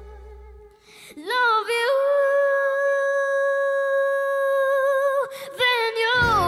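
A girl's solo singing voice, unaccompanied after a brief pause, sliding up into one long high held note for about three seconds, then breaking into a quick run of notes. The backing band comes back in just before the end.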